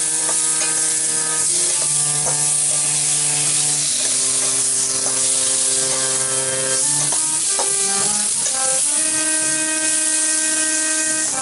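Okra in poppy-seed paste frying in a steel kadai, with a steady sizzle and the occasional scrape and tap of a spatula stirring it. Over it plays slow background music of long held notes that change pitch every second or two.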